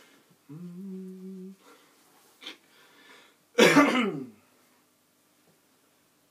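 A man hums one held note for about a second, then, about three and a half seconds in, lets out a loud, rough vocal sound that slides down in pitch.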